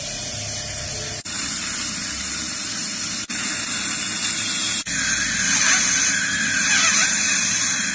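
Dental equipment hissing steadily, broken by three brief dropouts. About five seconds in the hiss turns louder and brighter, with a faint squeal in it.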